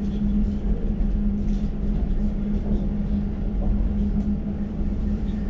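Elizabeth line Class 345 train running between stations, heard from inside the carriage: a steady low rumble with a constant hum.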